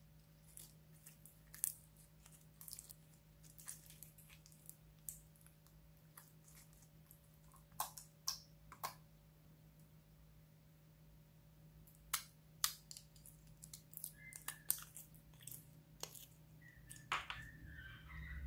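Clear slime being squeezed and stretched by hand, giving scattered small clicks, crackles and squelchy pops, in clusters with quieter gaps between, and a few short squeaks near the end.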